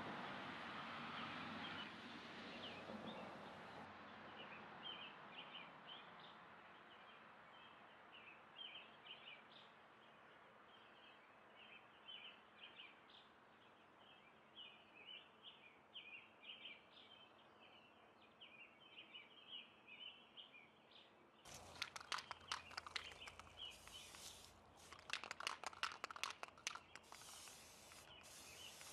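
A scraper dragging over dried paint on a canvas, fading out in the first few seconds. Then faint bird chirps, and in the last several seconds short, repeated hisses from a Rust-Oleum aerosol spray-paint can.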